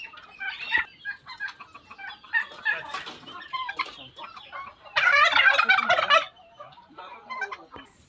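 Tom turkey gobbling once, loudly, about five seconds in: a rapid rattling call lasting about a second. Scattered short clucks from the surrounding fowl come before and after it.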